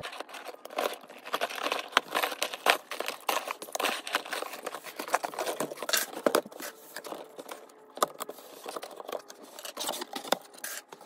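Fast-forwarded sounds of a cardboard shipping box being opened: a key scraping and tearing through the packing tape and the cardboard being handled, in a quick run of crackles, clicks and scrapes.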